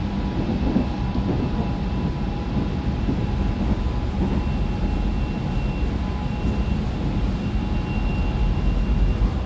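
Korail Line 4 electric train with a Toshiba GTO VVVF drive running steadily between stations, heard from inside the car: a steady rumble of wheels on rail with faint steady tones above it.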